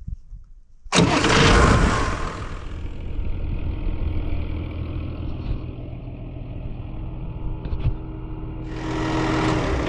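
An engine starts suddenly about a second in, loudest at the start, then settles into steady running that swells a little near the end.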